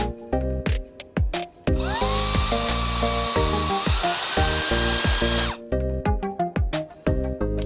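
Cordless handheld car vacuum cleaner switched on, its motor whine rising as it spins up, then stepping up to a higher speed about two seconds later before it is switched off abruptly. Background music plays throughout.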